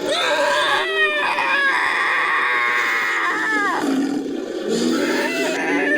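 Made-up creature vocalisation layered from a human voice and bird-of-prey, dinosaur and other animal call samples. A long call drops in pitch at its end, with short falling cries laid over it about a second in, and a second call begins shortly before the end.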